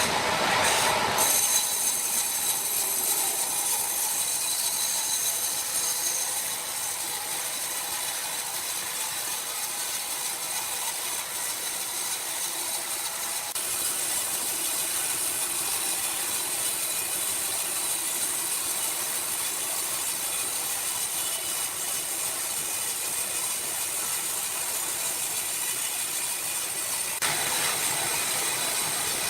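Sawmill machinery running steadily, a continuous mechanical clatter and hiss; the sound changes abruptly about a second in, about halfway through and again near the end.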